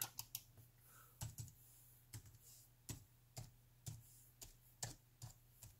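Laptop keyboard being typed on: a slow, irregular run of faint key clicks, about two or three a second, as a word is typed out one key at a time.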